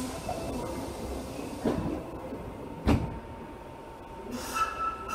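Hankyu 66 series commuter train standing at an underground station platform, with passengers' footsteps on the platform and one sharp knock about three seconds in.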